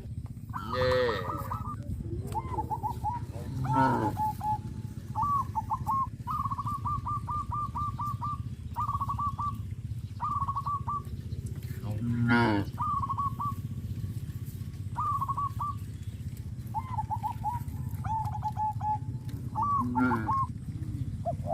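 Farm animals and birds calling: runs of short, quickly repeated bird calls, broken by a few louder calls from larger animals, over a steady low hum.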